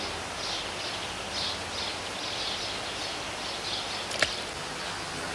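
Steady outdoor background hiss with a faint high chirp repeating about twice a second. There is one sharp click about four seconds in.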